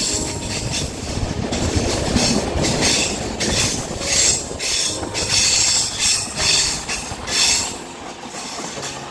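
Passenger train wheels squealing against the rails in repeated high-pitched bursts over a low running rumble and clatter, easing off near the end. This is wheel flanges grinding on the curves of a steep ghat climb.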